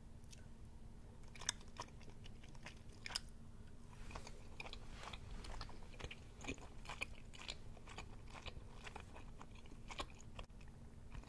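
A person chewing chewy tteokbokki rice cakes close to the microphone, with many short wet mouth clicks and smacks scattered throughout.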